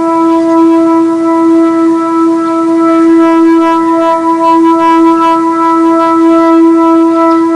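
Air raid siren sounding loud and holding one steady tone, with no rise or fall in pitch.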